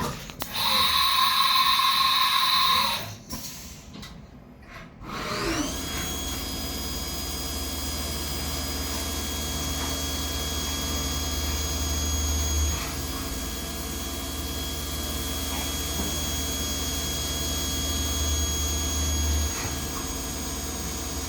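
CNC milling machine running a looped drill cycle. A loud noise lasts about two seconds near the start, then the spindle spins up about five seconds in with a rising whine and runs steadily. A low rumble drops away briefly about twelve seconds in and again near the end, as the drill works down, retracts and steps along to the next hole.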